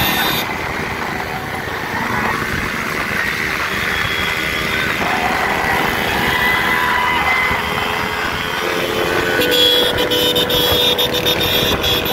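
A pack of small commuter motorcycles riding together, their engines running steadily, with men's voices calling out over them.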